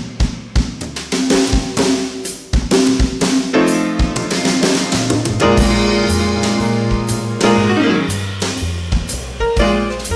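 Live instrumental jazz-blues band, with a drum kit playing snare and bass-drum strokes over a bass line and chords.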